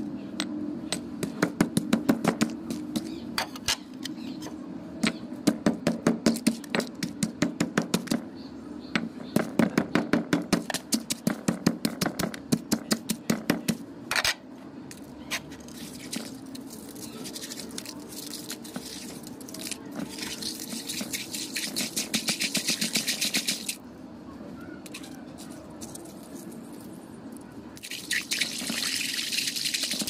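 Coloured ice cubes being pounded with a stone mortar and pestle: quick runs of sharp cracking knocks for about the first half. After that come wet crunching and squelching as the crushed, melting ice slush is squeezed and mashed by hand.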